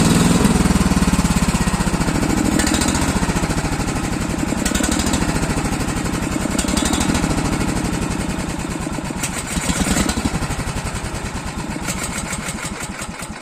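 Swaraj tractor's diesel engine running with a hard, rhythmic knocking beat, presented as an engine sound problem; the beat slows and fades near the end.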